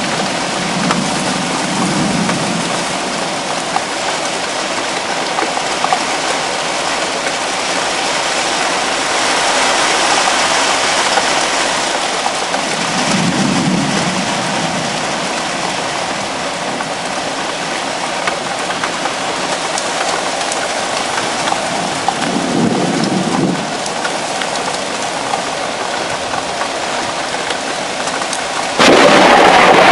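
Heavy thunderstorm rain falling steadily, with a few low rumbles of thunder. About a second before the end, the sudden loud crack of a close lightning strike cuts in.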